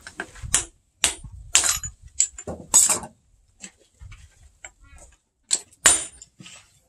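Hand hammer striking a red-hot axe head held in tongs on a steel post anvil, each blow ringing: a run of about six blows, a pause of about two seconds, then two more near the end.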